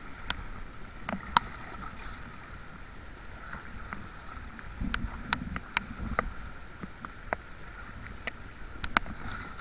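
Small boat underway, its engine running steadily, with scattered sharp taps and ticks through it.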